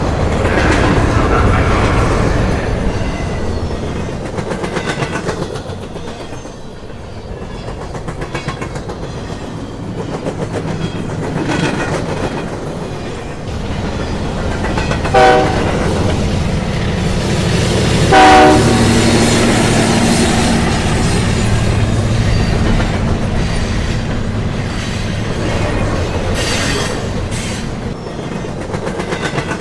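A train running on rails with a steady rumble and clickety-clack of the wheels. Its horn sounds twice in short blasts about three seconds apart, partway through.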